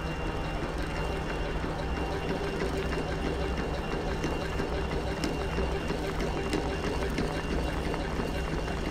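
Steady machine hum with a constant fine rattle and scattered small clicks, like machinery running without pause.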